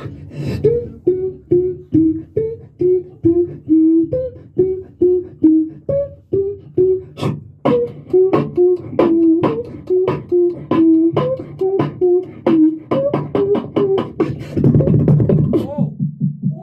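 Solo beatboxing into a handheld microphone: short, pitched, buzzing bass notes about two a second, punctuated by sharp hits. The strokes quicken later on, and near the end the performer holds a sustained low buzzing bass.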